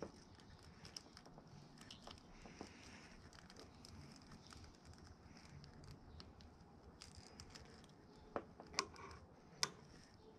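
Quiet hand handling of a small plastic brake-light switch and a screwdriver: faint ticking and rustling, with three sharper clicks near the end.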